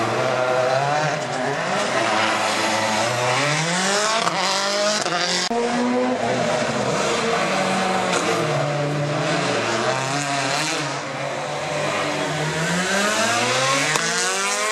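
Rally car engines revving hard, their pitch climbing through the gears and dropping again several times as the cars accelerate and slow.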